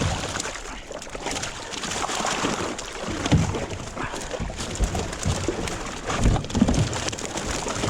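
Short low grunts of effort from people hauling a heavy hoop net loaded with buffalo fish, over a steady wash of water and net noise.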